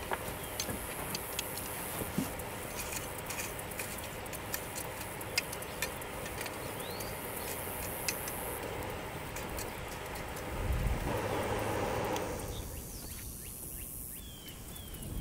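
Live charcoal coals crackling, with frequent sharp little pops and ticks over a steady hiss. About ten seconds in a louder low rumble comes for a couple of seconds, then the hiss drops away and a few short high chirps are heard near the end.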